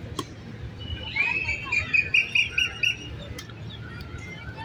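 A bird singing: a rising note about a second in, then a quick run of about six short repeated chirps, over a steady low background rumble.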